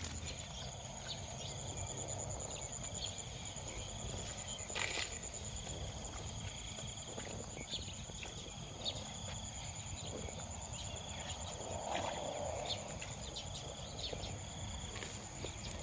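Insects in a rice paddy: a steady high-pitched whine, with a trilling call that repeats every second or two. A few faint ticks and a soft rustle about twelve seconds in.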